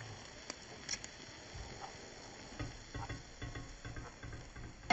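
Faint sizzling of an egg omelet frying in a metal wok, with scattered light clicks and taps and a sharper click near the end.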